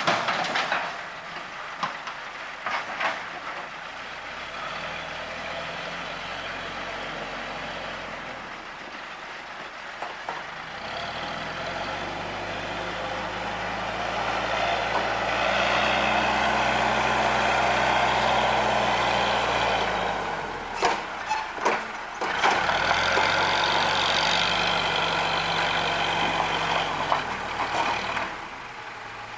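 Diesel engine of heavy earth-moving equipment running, revving up and held under load for several seconds, easing off, then revving again. Sharp clanks and knocks come near the start and again about two-thirds of the way through.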